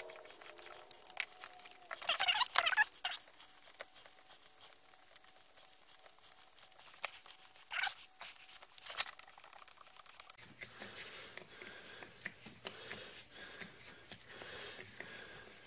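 Handling noise from reassembling a Stihl MS 250C chainsaw: scattered clicks, knocks and rattles of the plastic housing, engine and bolts as the bolts holding the engine in the frame are turned with a T-handle hex key. There is a louder burst of rattling about two seconds in, and a few sharp clicks around eight and nine seconds in.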